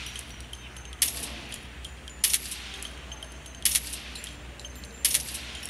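Short, sharp metallic clinks with a brief ring, four of them evenly spaced about every second and a half, over a low steady hum.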